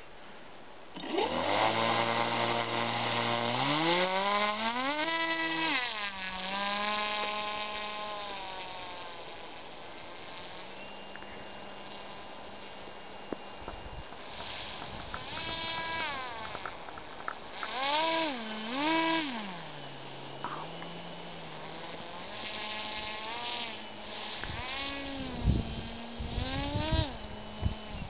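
Small motor of a radio-controlled motorized board buzzing, starting about a second in and climbing in pitch, then revving up and down again and again as the board is driven.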